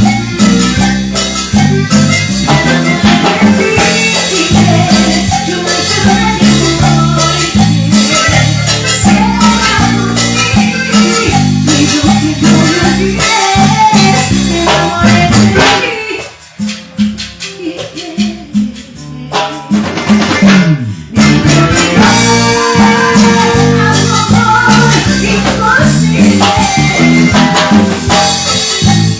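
Live band playing Latin dance music, with shakers and a driving bass line. About halfway through the band drops to a brief quieter break, then comes back in full.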